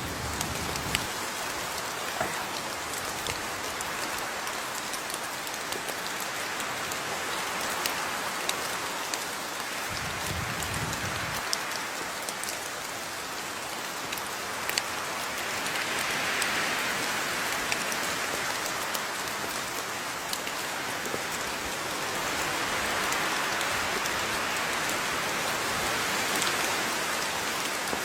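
Steady rain falling, with scattered sharp drop ticks.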